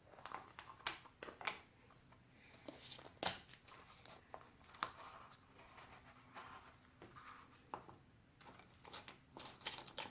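Tape being pulled and torn, with light clicks and taps as small wooden pieces are handled: a run of short rasps and sharp ticks at irregular intervals.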